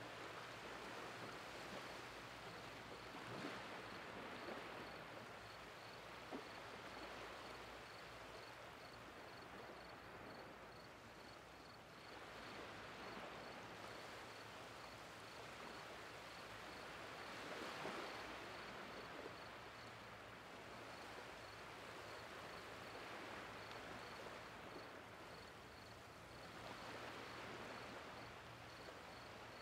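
Small waves washing softly onto a flat, shallow beach as the tide comes in, a faint steady wash that swells three times as a wave runs in.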